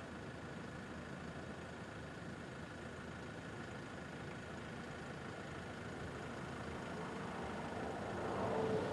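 A steady low hum of passing traffic, then a road vehicle approaching and growing louder over the last two seconds or so.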